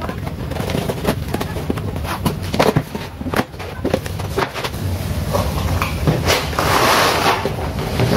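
Cardboard box being cut open and unpacked by hand: scissors snipping packing tape, then cardboard flaps knocking and scraping, with a stretch of rustling plastic wrap and cardboard a little before the end.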